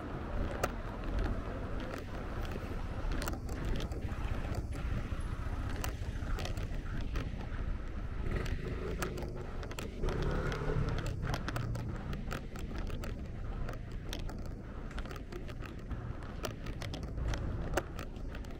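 Street ambience on a cobbled city street: a low, steady rumble with frequent light, irregular clicks and taps.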